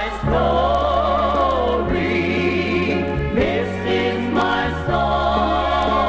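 Gospel singing with instrumental backing: held, wavering notes over a bass line that steps to a new note every second or so.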